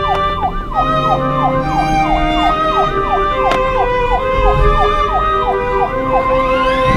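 Siren sound effect in a fast rising-and-falling yelp, about three sweeps a second, over steady background music; it stops about six seconds in, followed by a rising glide.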